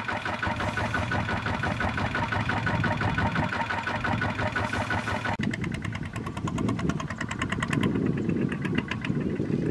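Single-cylinder Kubota RT120 diesel engines of two-wheel walking tractors running with a fast, even chugging. About halfway through, the sound changes abruptly to a lower, rougher run with clearly spaced strokes.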